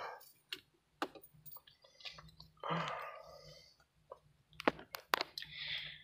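Scattered sharp clicks, two of the strongest close together near the end, with soft rustling in the middle and at the close, over a faint low hum.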